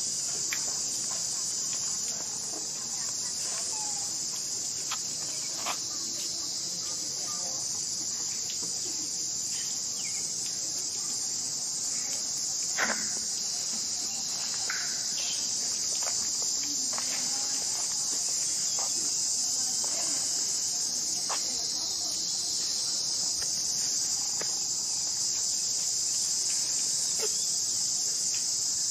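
Steady high-pitched insect chorus, with scattered faint clicks, taps and brief squeaks over it; the sharpest is a single tap about 13 seconds in.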